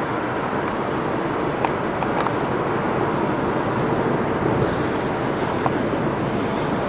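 Steady rushing wind noise on the microphone, mixed with choppy lake water.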